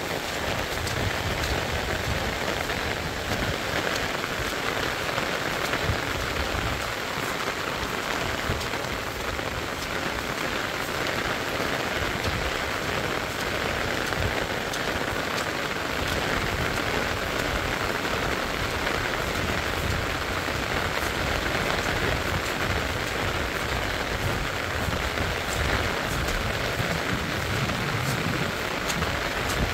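Heavy rain falling steadily, with many small close drop hits through a constant hiss.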